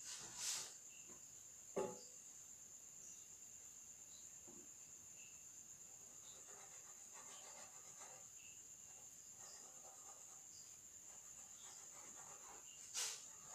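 A cricket trilling steadily at a high pitch, with faint pencil scratching on paper and three sharp knocks: two near the start and one near the end.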